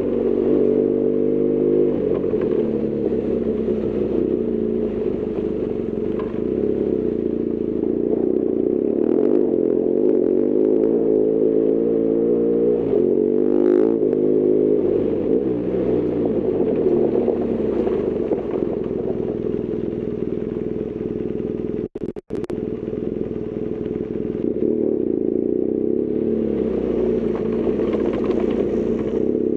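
BMW R1200GS Adventure's boxer twin engine running on the move, its pitch rising and falling again and again as the rider works the throttle and gears. The sound cuts out twice for an instant about three quarters of the way through.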